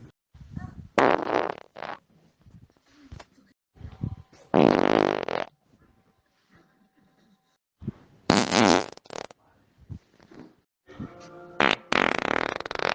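A series of human farts, one after another, with short silent gaps between them. There is a short one about a second in, a long loud one about halfway, another about two-thirds through, and a long one at the very end.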